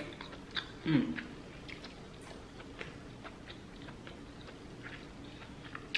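A person chewing seafood close to the microphone, with a run of soft, wet mouth clicks and smacks. There is a brief vocal sound about a second in.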